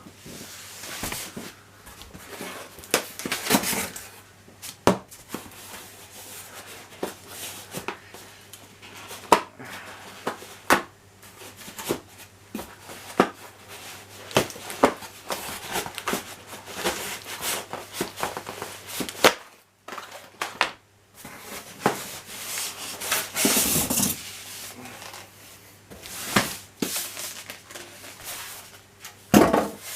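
Unboxing handling noise: packaging and the boxed soundbar and subwoofer being rubbed, scraped and shifted, with many short knocks and clicks and a louder rustle a little after the middle.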